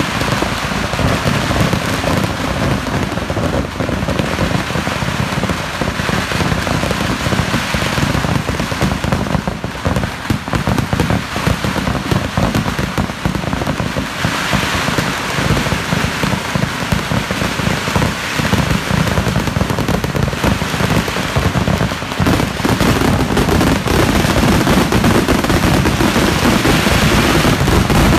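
Fireworks barrage: a dense, continuous rattle of firecracker bangs and crackling, so thick it runs together like heavy rain. It grows louder over the last few seconds.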